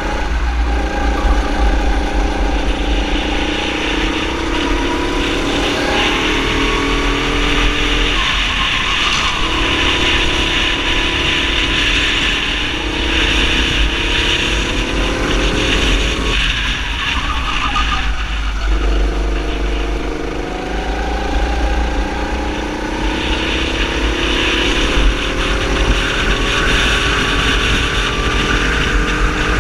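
Kart engine at racing speed, heard from on board with wind rumbling on the microphone: the engine note climbs in long rising sweeps, dropping away briefly about eight seconds in and again for about two seconds around sixteen seconds, where the driver lifts off for corners, before climbing again.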